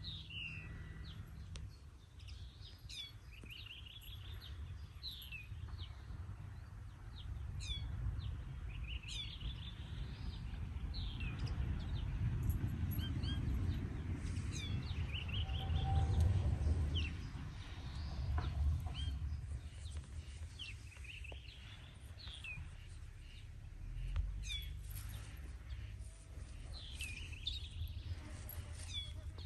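Small songbirds chirping and singing in short, quick phrases throughout, over a low, steady rumble that swells and grows louder toward the middle.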